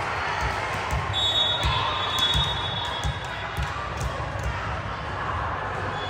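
Volleyball thudding and bouncing several times at irregular intervals, over background crowd chatter.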